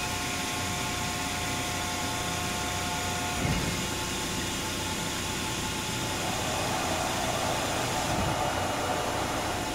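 Cincinnati 400H hydraulic press brake running with a steady hum. There is a dull thud about three and a half seconds in, and a rushing hiss builds from about six seconds, with a softer thud near eight seconds.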